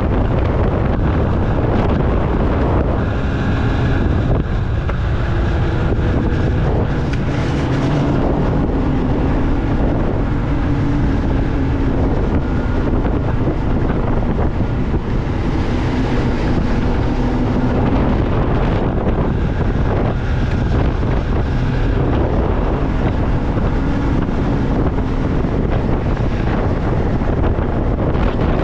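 Snowmobile engine running under way, its drone half buried in heavy wind noise on the microphone; the engine note rises and falls a little with the throttle.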